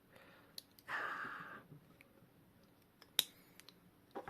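Faint clicks and taps of small metal clock parts being handled while a loose mainspring is worked into a clock movement, with a short rustling rush about a second in and a sharper click about three seconds in.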